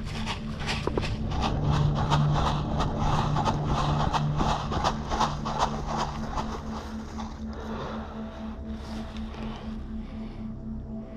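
Quick, rhythmic footsteps, about four a second, over a steady low hum, growing sparse after about seven seconds.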